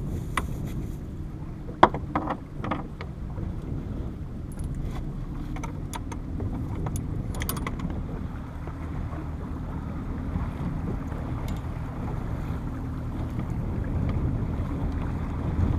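A small motorboat's engine running steadily, with wind and water noise. A few sharp clicks and knocks of handled gear come in the first three seconds, the loudest about two seconds in.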